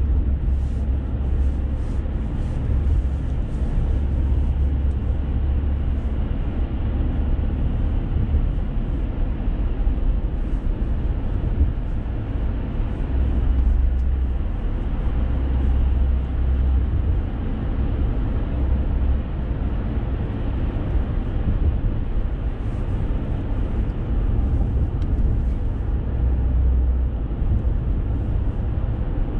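Steady road and engine noise inside a moving car's cabin: a continuous low rumble with tyre noise on the road surface.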